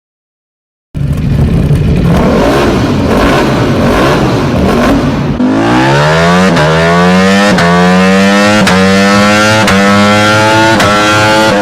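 Ducati Panigale V4 superbike's V4 engine through an aftermarket exhaust, starting in loudly about a second in and revving hard. About halfway through, a steady engine note rises in pitch and levels off high, with brief cuts about once a second.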